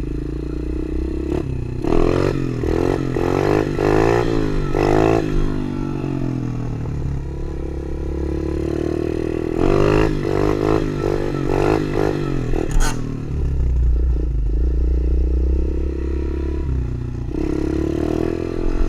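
Tao Tao DB24 110cc pit bike's small four-stroke single running on the move. It revs up and down in quick rising sweeps twice, about two seconds in and again around ten seconds, and runs steadier in between.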